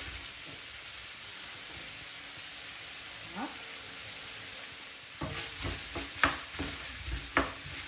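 Pork sausage pieces and freshly added chopped onion sizzling in a frying pan. From about five seconds in, a utensil scrapes and knocks against the pan several times as they are stirred.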